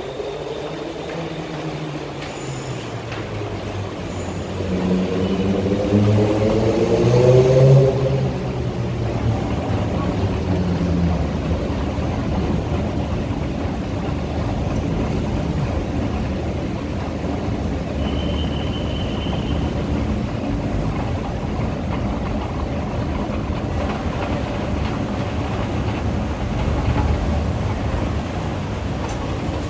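Steady city traffic and transit noise, with a vehicle pulling away and its pitch rising from about five to eight seconds in, the loudest moment.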